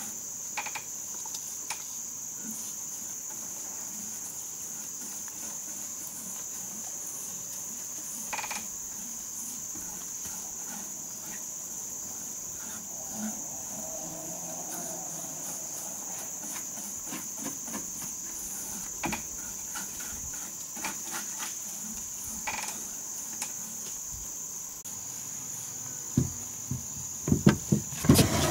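Insects chirring in one steady high-pitched trill, with a few faint clicks. Near the end, a series of wooden knocks as a wooden stool-bench is moved on the plank porch floor.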